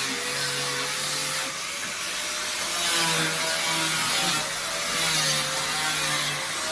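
Tool work, likely cutting: a steady motor hum with a hissing noise that swells and fades about every two seconds.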